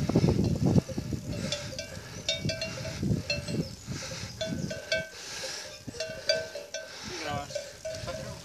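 Bells on grazing cows clanking in short, irregular strikes, over a low rumble that eases after the first second.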